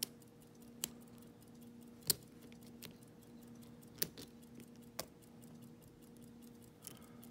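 Faint metallic clicks of a lock pick and tension wrench working inside a custom pin-tumbler challenge lock cylinder, single ticks about once a second, the sharpest about two seconds in, over a faint low hum.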